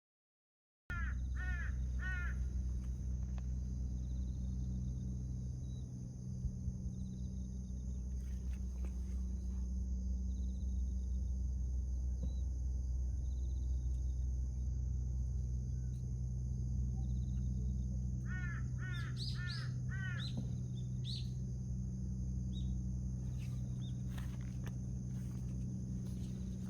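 A crow cawing in two short series of calls, about a second in and again around two-thirds of the way through, over a steady high buzz and a constant low hum.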